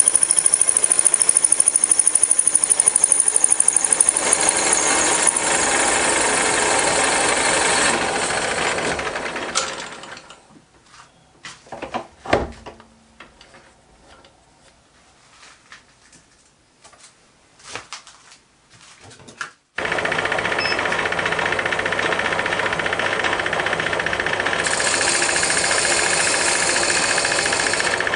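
Metal-turning lathe machining a cast flywheel, running with a fast rattle and a high cutting hiss. About a third of the way in it runs down to a stop, leaving a few clicks and knocks as the work is handled. It starts again abruptly about two-thirds through, and the cutting hiss returns near the end as the front face is turned.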